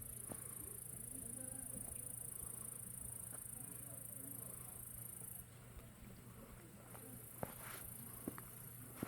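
Insects chirring in a steady high-pitched trill that stops for a second or so partway through and then resumes. A few sharp clicks come near the end.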